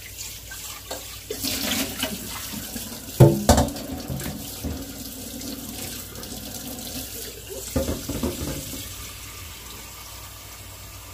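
Tap water running into a stainless steel bowl in a kitchen sink as it is rinsed out, with two sharp knocks of metal about three seconds in and a few more near eight seconds.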